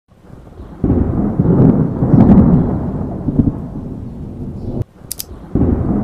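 Thunder sound effect: heavy rolling rumbles that swell about a second in, cut off sharply just before the five-second mark, and start again near the end. A quick pair of sharp clicks comes in the gap.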